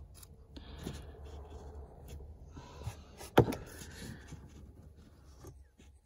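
Hands working oscilloscope back-probe leads into the wires of a car's occupant classification module connector: rubbing and scraping of wires, plastic and carpet, with scattered small clicks and one sharp click about three and a half seconds in. A low steady hum runs underneath.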